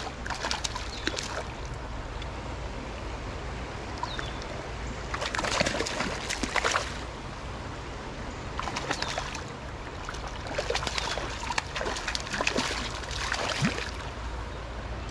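Water splashing in irregular bursts as a hooked trout thrashes at the surface while being brought in, over the steady flow of the stream.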